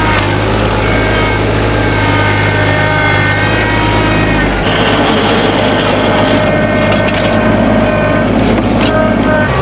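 New Holland TC35DA compact tractor's diesel engine running steadily while plowing snow; its note shifts about halfway through.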